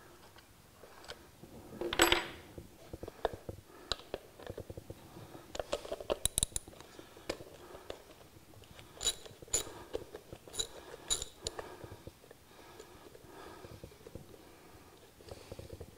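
Small ratchet and socket working loose 10 mm hub bolts out of a balloon-tire wheel: irregular metal clicks and clinks, several with a bright ring, and a louder knock about two seconds in.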